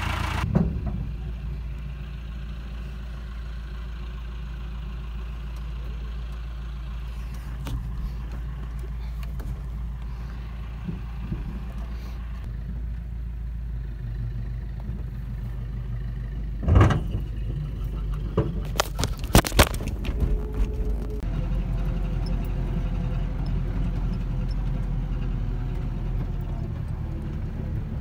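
Low, steady engine rumble from inside a VW Kombi van's cabin as it drives close behind a farm tractor, with a few sharp knocks and rattles about 17 seconds and again about 19 to 20 seconds in.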